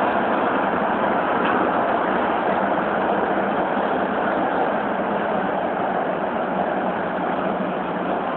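Beijing Subway Line 8 train running, a steady, even rush of running noise with no distinct clicks or tones.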